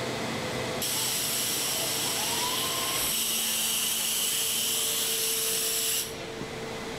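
Assembly-line machinery noise. A loud, steady high hiss starts suddenly about a second in and cuts off near the end, over a steady machine hum.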